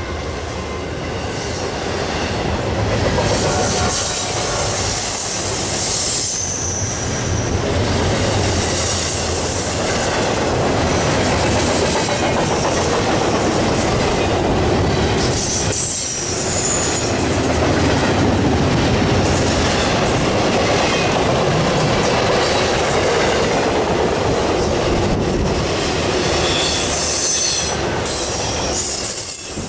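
Norfolk Southern intermodal freight train rolling past close by: steady rumble and clatter of the cars' wheels on the rails, with short high-pitched wheel squeals several times.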